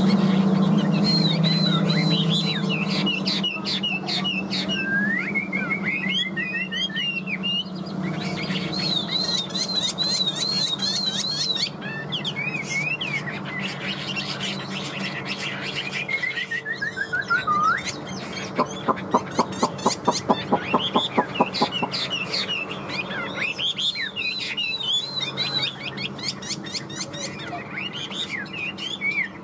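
Chinese hwamei (Garrulax canorus) singing a long, varied song of whistled phrases, repeated notes and downward slurs. About two-thirds of the way through comes a run of loud, sharp notes at about four a second. A low steady hum runs underneath and is strongest at the start.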